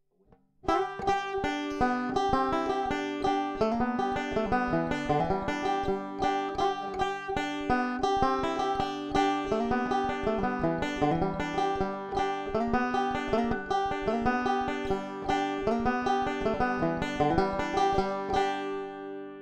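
Five-string resonator banjo played with fingerpicks in fast, continuous rolls, heard through its piezo pickup plugged in direct. The picking starts under a second in, stops shortly before the end, and the last chord rings out and fades.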